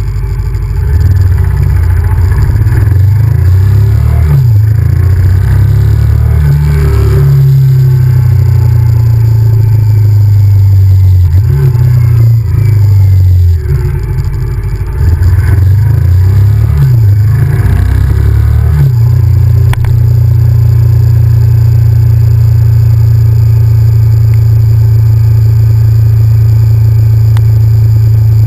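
Honda VTR1000F's 90° V-twin engine running as the motorcycle is ridden, its pitch rising and falling with throttle and gear changes through the first two-thirds. It drops briefly twice around the middle, then settles into a steady cruise.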